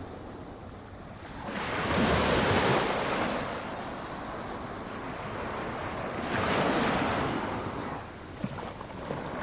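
Small waves breaking gently on the shore of a flat calm sea: a low steady wash with two waves rushing in and fading, about five seconds apart.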